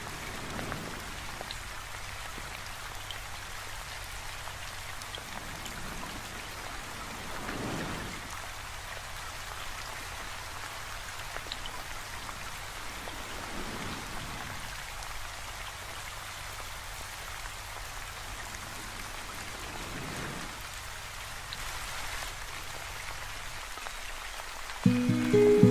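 Steady rain falling, an even hiss of drops. Music comes in suddenly just before the end.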